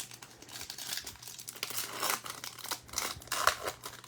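Plastic wrapper of a trading-card pack torn open and crinkled by hand, a continuous crackling with sharper crackles through the middle.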